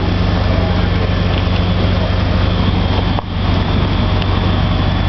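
Heavy engine running steadily, likely a fire engine's pump feeding the hose, under a loud even rushing noise from the burning fire.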